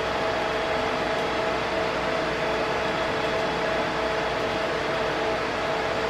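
Cooling fans of a Dell PowerEdge R240 1U server running steadily: an even rushing noise with a couple of steady whining tones.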